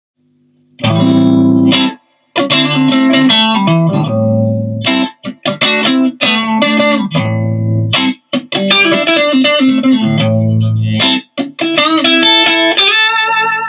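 Electric guitar played through a valve amp with a Mooer Green Mile overdrive pedal (a Tube Screamer clone) in the chain: a rock riff of ringing chords, cut short by brief stops, starting about a second in, with the last chord left to ring near the end.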